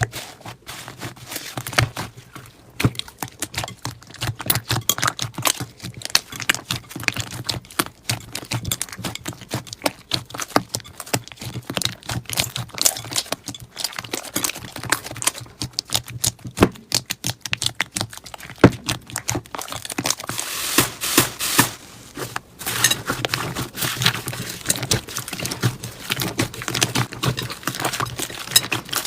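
Slime being squeezed and worked by hand, giving a dense, irregular crackling of small clicks and pops.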